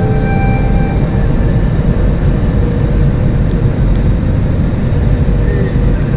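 Airliner cabin noise during the landing: a steady, loud low rumble of engines and airflow heard from inside the cabin, with a faint steady hum running through it.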